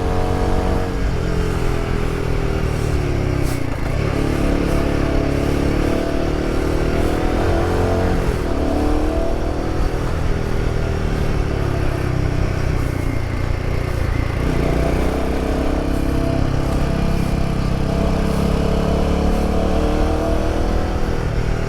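Royal Enfield Himalayan 450's single-cylinder engine heard through a prototype aftermarket exhaust, louder than stock, while riding through bends. The revs rise and fall several times as the throttle is rolled off and opened again.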